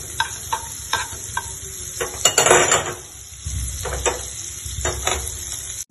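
Butter sizzling as it melts in a hot frying pan, with a utensil stirring it and knocking against the pan in short, lightly ringing taps. There is a louder sizzling scrape about two and a half seconds in.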